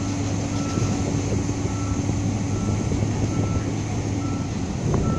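Barge crane's engine running steadily, with a short high warning beep repeating about once a second.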